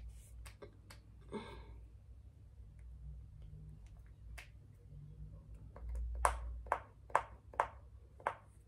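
Sharp clicks from makeup products being handled: a few scattered ones at first, then five louder clicks in quick succession, about two a second, near the end.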